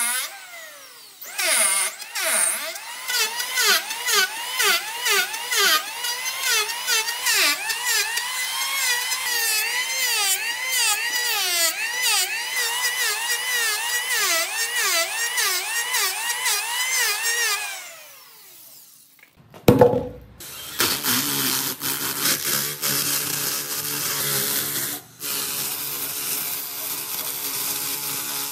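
Electric hand planer shaving the cut end grain of a tree stump in repeated passes; its motor whine drops and recovers with every stroke as the blades bite. After a short pause, a spinning abrasive disc on a power tool runs steadily against the bark of a log.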